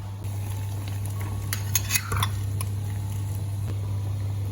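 A pot of white radish boiling on the stove under a steady low hum. About a second and a half in, a utensil clinks and scrapes against the pot a few times as the pot is stirred.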